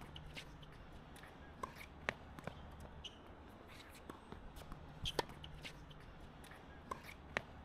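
Faint, irregular taps and pops of tennis play on a hard court, tennis ball bounces and hits, over a low steady hum.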